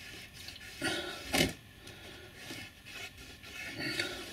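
A cloth rubbing along model railway rails, wiping rust paint off the rail tops in short, irregular strokes, with one sharper scrape about a second and a half in.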